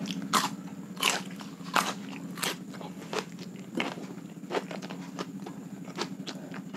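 Close-up crunching bites and chewing of raw cucumber. Sharp crunches come about every three-quarters of a second for the first few seconds, then softer chewing crunches follow, over a steady low hum.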